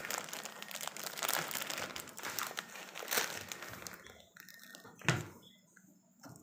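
Crinkling, rustling noise for about four seconds, then a single knock about five seconds in.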